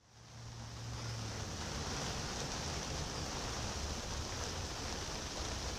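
Steady background hiss with no distinct knocks or clicks, and a faint low hum in the first second or so.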